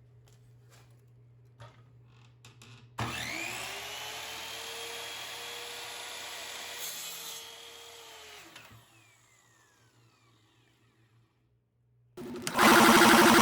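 A power tool's electric motor starts about three seconds in, its whine rising as it spins up, runs steadily for about five seconds, then is switched off and quickly winds down. Near the end a much louder, dense sound begins.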